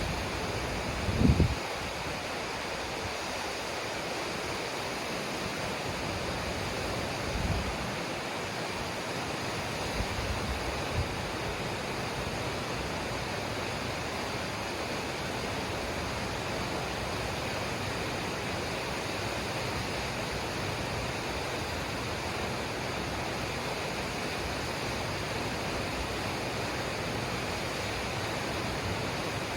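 Steady rushing of a waterfall, even and unbroken, with a few brief low thumps in the first dozen seconds.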